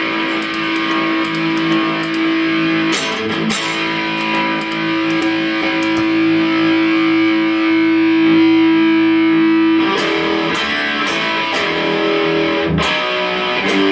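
Electric guitar played through a Peavey Envoy 110 solid-state combo amp on its high-gain channel, with heavily distorted chords struck and left to ring. One chord is held for about six seconds in the middle, then a few more chords are struck near the end.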